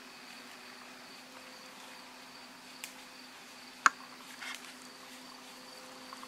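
Steady chorus of insects, crickets among them, filling the background. A single sharp click sounds about four seconds in, with a faint tick shortly before it and a brief rustle just after.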